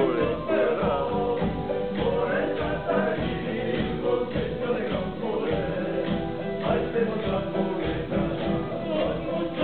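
Live band of several male singers singing together in harmony, accompanied by strummed acoustic guitars.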